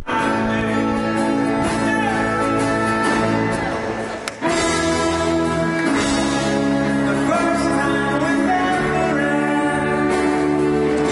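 Live folk-rock band playing with sung vocals and held notes over guitars, with a brief dip in level about four seconds in.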